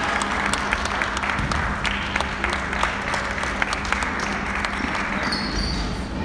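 Spectators clapping in a sports hall, the applause thinning out toward the end.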